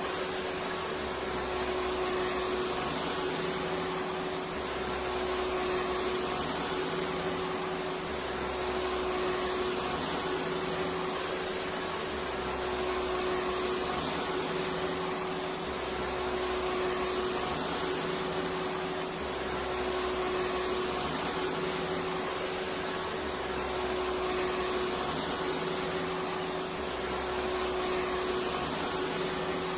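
Electric vacuum cleaner running steadily: an even rushing noise with a constant hum, and a low throb that comes round every three to four seconds.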